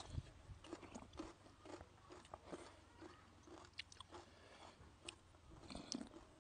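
Faint chewing and biting of crisp food by two people eating with their hands: scattered short crunches and mouth clicks.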